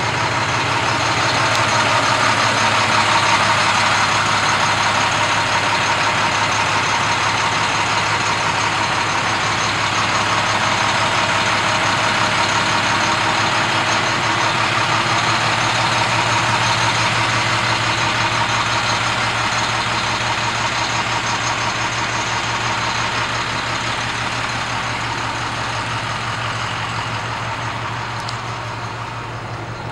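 The diesel engine of a 2005 International 4300 ambulance idling steadily, growing a little fainter near the end.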